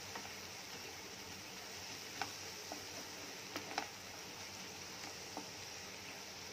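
Spatula stirring a thick onion-tomato masala in a nonstick pan, giving a few light clicks and taps against the pan over a faint steady hiss of the masala cooking on low heat.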